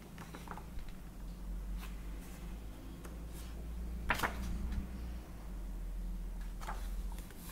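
Paper pages of a paperback colouring book being turned and handled, with a louder page rustle about four seconds in and another near the end, over a steady low hum.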